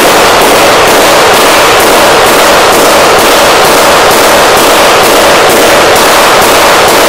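Homemade bang-box detonating over and over: a butane-oxygen charge fired by auto-ignition in a combustion chamber closed by a spring-loaded Deutz engine inlet valve. It gives a rapid, even series of very loud bangs, about two a second, so loud that the recording is overloaded throughout.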